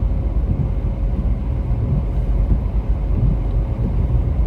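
Steady low rumble of a car's engine and tyres heard inside the cabin while driving uphill on a wet road.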